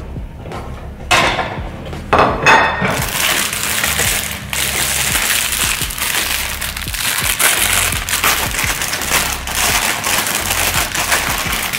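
A plastic salad bag crinkling and rustling steadily as it is handled and opened, after a couple of knocks near the start.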